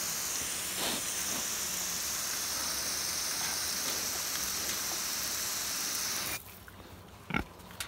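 Garden hose spraying a steady stream of water, which cuts off suddenly about six seconds in; a single short knock follows near the end.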